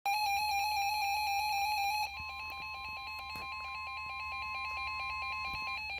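NOAA Weather Radio alert: a rapidly pulsing electronic alarm tone, loud for about two seconds and then quieter, joined about two seconds in by a steady single-pitch tone near 1 kHz, the weather radio warning alarm tone, which stops just before the end.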